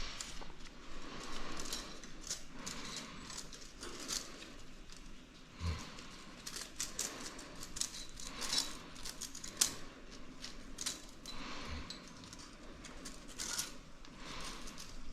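Hand tools and engine parts being handled: scattered small metallic clicks, ticks and light rattles, with a dull thump about six seconds in and another near twelve seconds.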